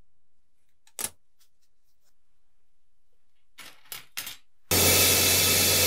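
Thin metal frames clinking lightly against each other as one is picked out of a pile, after a single sharp click about a second in. Near the end a loud, steady hiss with a low hum starts abruptly.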